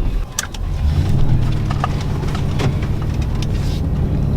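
Lifted pickup truck's engine running steadily, heard from inside the cab, with a few sharp clicks and knocks in the first seconds.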